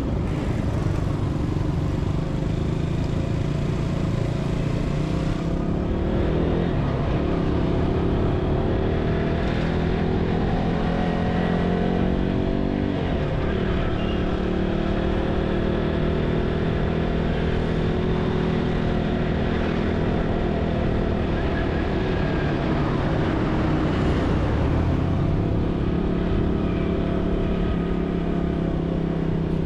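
Motorcycle engine running while riding through city streets, its pitch rising and falling with the throttle and gear changes several times.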